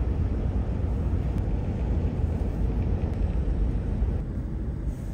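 Steady low rumble of a car driving along a highway, road and wind noise heard from the moving vehicle.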